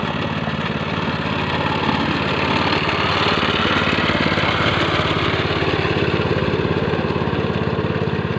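Engine of a walk-behind plough tractor (mesin bajak) running steadily, with a rapid, even beat.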